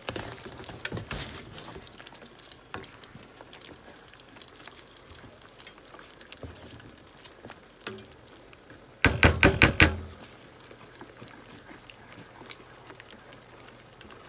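Wooden spoon stirring and scraping chicken and stock in a metal skillet, with scattered small clicks. About nine seconds in, the utensil knocks loudly against the pan in a rapid run lasting about a second.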